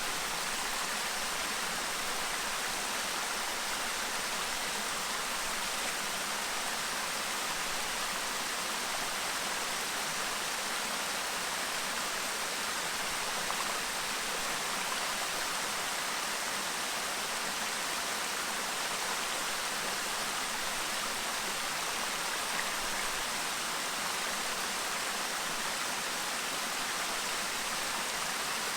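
Clear stream babbling steadily: an even, unbroken rush of flowing water.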